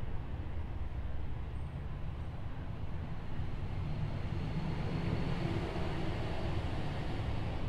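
Steady low rumble of background noise, with no clear engine note or rhythm.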